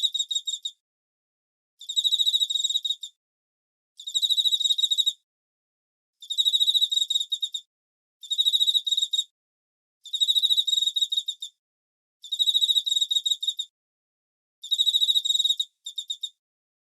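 A cricket singing in repeated high, pulsed trills, each about a second long and coming roughly every two seconds, about eight in all, with complete silence between them.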